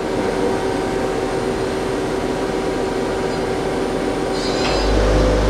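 Main spindle of a Mazak Quick Turn 200MS CNC lathe spinning its 8-inch chuck at 2400 RPM, a steady whine with several tones. Near the end a deep hum comes in and it gets a little louder as the spindle steps up toward 3000 RPM.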